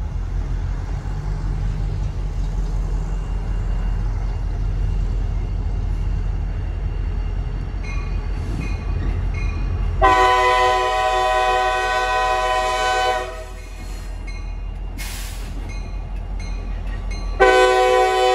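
Norfolk Southern SD40-2 diesel locomotive running slowly with a low engine rumble, then sounding its multi-chime air horn for a grade crossing: one long blast about ten seconds in, lasting about three seconds, and another starting near the end.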